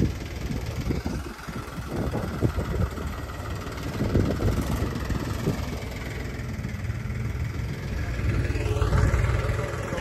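A vehicle engine running steadily in the open, under a heavy low rumble. It grows louder for a moment near the end.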